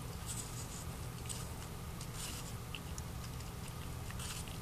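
Husky puppy gnawing and chewing on a whole green apple: a few short, crisp bites and scrapes at irregular intervals over a steady low hum.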